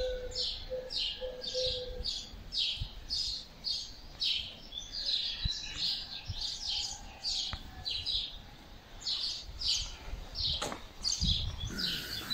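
Small birds chirping, a steady run of short high chirps at about two to three a second.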